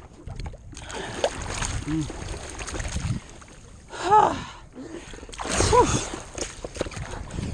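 Water splashing and sloshing against a stand-up paddleboard as the rider paddles with bare arms, coming in uneven washes. Two short vocal exclamations come through, about four and six seconds in.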